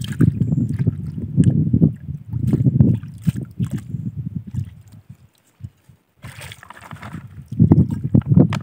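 Water sloshing and splashing as vegetables are swished about in a steel bowl dipped into a pond, an uneven low rumble with scattered splashes. It drops away briefly about five seconds in and picks up again near the end.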